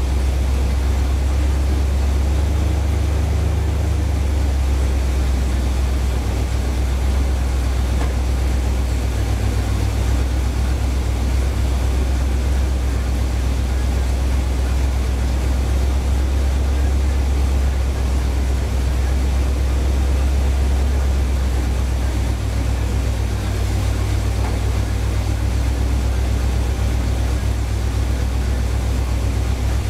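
1975 Corvette's small-block V8 idling steadily.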